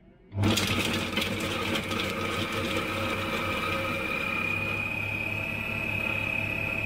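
Monsieur Cuisine Connect food processor's blade spinning at high speed, chopping onion halves and a garlic clove in its mixing bowl. It starts suddenly about half a second in, with the pieces rattling against the bowl for the first second or so, then runs as a steady high whine that starts to fall in pitch at the very end.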